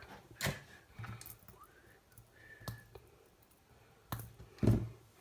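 A few scattered clicks and knocks from the plastic parts of a T12 soldering iron handle being handled and fitted together, the loudest a knock near the end.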